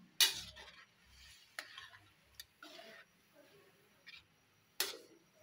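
Metal spoon clinking and scraping against a metal wok while stirring a sauce: a few sharp clinks, the loudest about a quarter second in and near the end, with short scrapes between them.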